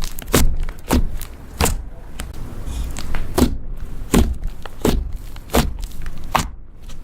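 Butter slime being pressed and squished by hand, giving a run of sharp wet pops and squelches, about one every second or less.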